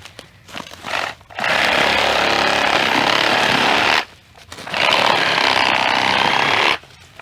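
Power saw cutting wood: a short burst, then two long cuts of a couple of seconds each, the saw stopping completely in between.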